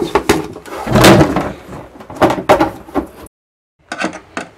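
Plastic cabinet cover of an RO water purifier being handled and pushed back onto its frame, giving a series of hollow plastic knocks and clunks, the loudest about a second in. After a short gap near the end come a few small sharp clicks as a screwdriver works on the cover.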